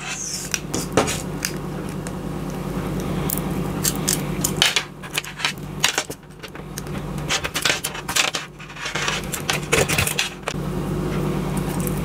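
Box-cutter blade scraping and nicking the white insulation off the copper core of an RG6 coaxial cable: an irregular run of sharp clicks and scrapes with short pauses, over a steady low hum.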